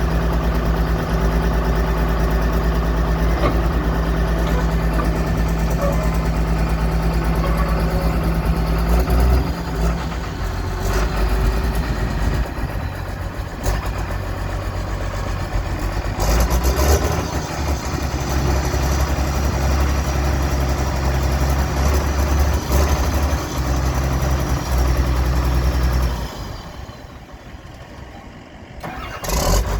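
John Deere 700J LGP bulldozer's 115 hp diesel engine running steadily. Its note shifts a couple of times as the machine works, and the sound drops away briefly near the end.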